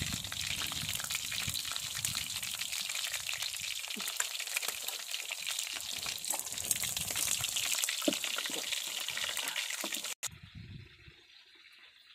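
Whole sea fish deep-frying in a wok of hot oil: steady sizzling and crackling that stops abruptly about ten seconds in.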